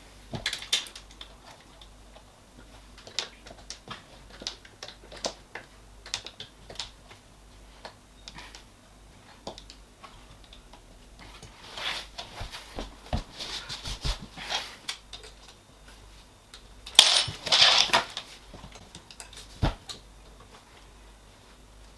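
Allen key working M5 bolts tight into a 3D printer's metal frame: irregular small metallic clicks and clinks as the key is seated, turned and moved from bolt to bolt, with a louder flurry of clinks about seventeen seconds in.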